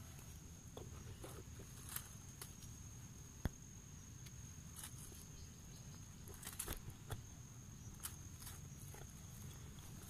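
Faint rustling and scattered light clicks, with one sharp click about three and a half seconds in and a short flurry of them later, over a steady high-pitched tone.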